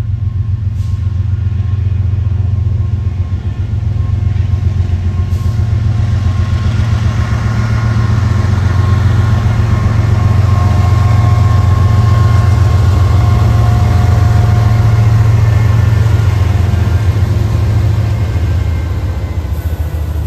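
Diesel freight locomotive running loud as the train comes by: a deep engine rumble with a whine over it, growing louder over the first half, the whine sagging slightly in pitch near the end as it passes.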